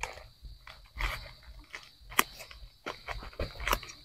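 Irregular crunching and rustling as dry soil, leaf mulch and the plastic sack of a potted turmeric plant are handled and dug into, in a string of sharp crackles. A steady high-pitched drone runs underneath.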